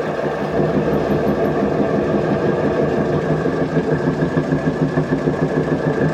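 Electric potter's wheel motor running steadily with a hum while wet clay is centered on the spinning wheel head.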